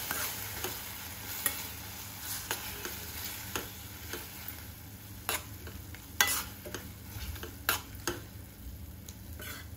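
Steel spoon stirring sliced onion, capsicum and tomato purée in a non-stick kadhai, with scattered clicks and scrapes of the spoon against the pan over a faint sizzle of the vegetables frying.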